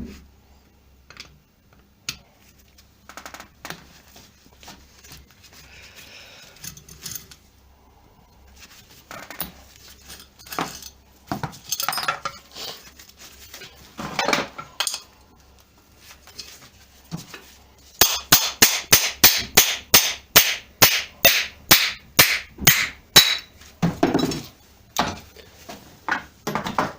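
Metal tools clinking and scraping on a dismantled car alternator, then a run of about twenty sharp hammer taps, about three a second, as the alternator's front bearing is knocked out.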